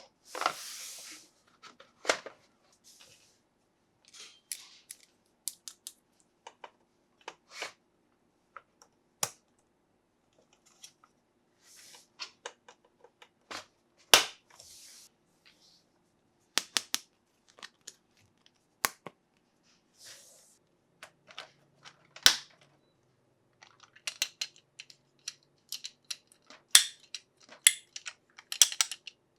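Hard plastic toy parts and packaging being handled: irregular sharp clicks and knocks, with a few short rustles or tears of packaging between them.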